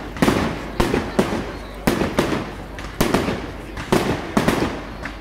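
Fireworks display: a quick series of about ten sharp aerial bangs, roughly two a second at uneven spacing, each dying away quickly.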